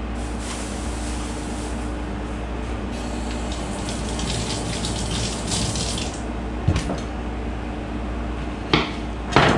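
Kitchen faucet running into a stainless steel sink while hands are rinsed under the stream, shut off about six seconds in. A few sharp knocks follow near the end.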